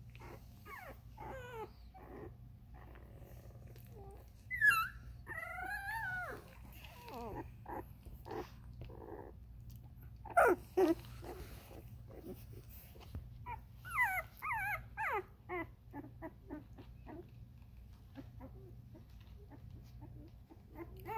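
Litter of two-week-old Vizsla puppies whimpering, squeaking and grunting, with wavering high cries that peak loudest about five and ten seconds in.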